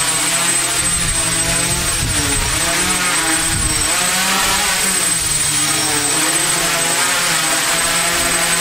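Quadcopter's four brushless motors and propellers buzzing as it flies low, the pitch of the whine wavering up and down as the motors speed up and slow down to hold it level. One motor is a DJI 2212 among three 2215s, and the craft flies fine with the mismatch.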